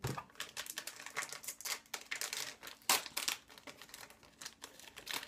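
Fishing-lure packaging being worked open by hand, crinkling and crackling irregularly, with one sharper snap about three seconds in.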